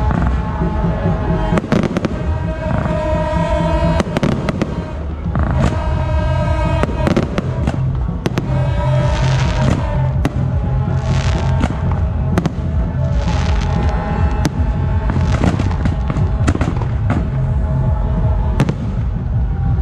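Aerial fireworks going off in quick succession, a string of sharp bangs and crackles at irregular intervals, over music that plays throughout.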